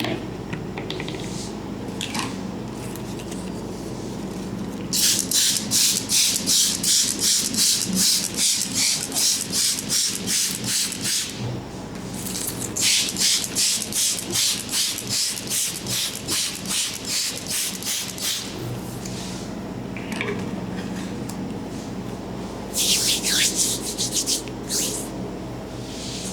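Rubbing strokes of a head massage, about three a second, in three runs of several seconds each, over a steady low hum.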